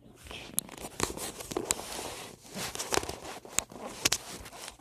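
Rustling and crinkling with scattered sharp clicks and knocks, from objects being handled and moved close to the microphone.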